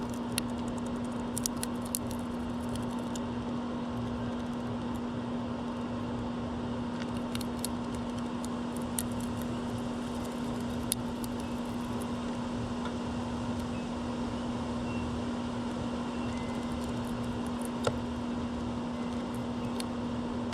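Steady mechanical hum holding one constant low tone over a background hiss, with scattered sharp clicks and a few faint short high chirps.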